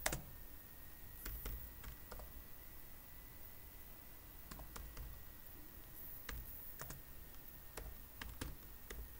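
Computer keyboard keys clicking as a terminal command is typed: about a dozen keystrokes, slow and unevenly spaced.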